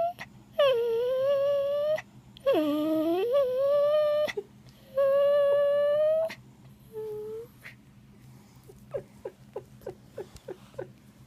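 Miniature Boxer dog whining in three long, wavering, drawn-out calls, each dipping and rising in pitch, followed by a run of short, faint whimpers.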